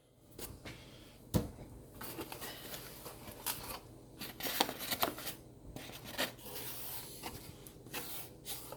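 A cardboard shipping box being handled and opened: irregular rustling scrapes and short clicks and knocks, the sharpest about a second and a half in.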